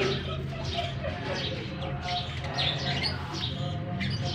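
A flock of lovebirds chirping, many short, high chirps overlapping continuously, over a steady low hum.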